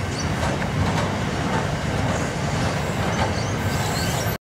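Freight wagons of a steel train rolling past, a steady rumble of steel wheels on rail. The sound cuts off abruptly a little over four seconds in.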